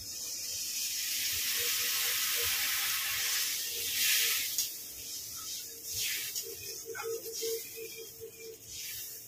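Water poured into a kadai of spice paste fried in hot mustard oil, hissing and sizzling as it hits the oil. The sizzle builds to its loudest about four seconds in, then dies down in separate gusts as the gravy is stirred with a ladle.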